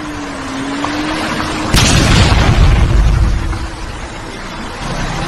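An explosion booms suddenly about two seconds in, its low rumble dying away over a second or so, over a steady background rumble.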